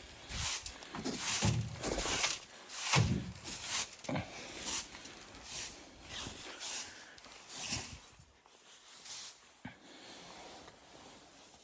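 Footsteps crunching and scuffing in snow, an irregular series of one to two steps a second that thin out and fade after about eight seconds.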